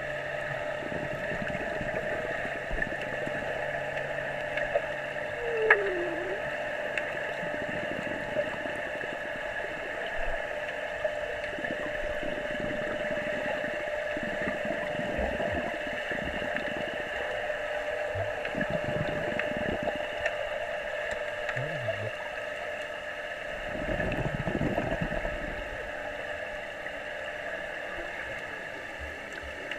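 Muffled underwater sound of a swimming pool heard through a camera's waterproof housing: a steady hum with several held tones, with irregular bursts of bubbling and splashing from a small child kicking and paddling, the biggest about three quarters of the way through.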